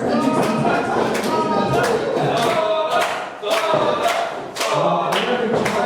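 A small crowd of wrestling fans chanting and shouting together, with several sharp impacts among the voices.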